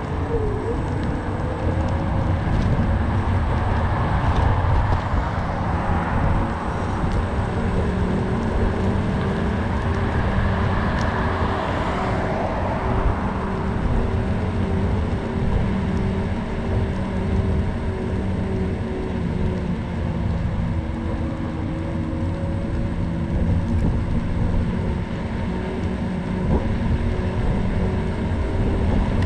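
Riding noise of an electric scooter rolling along a paved path: a steady low rumble from the wheels and passing air, with a thin motor whine that holds a steady pitch, dipping slightly about two-thirds of the way through.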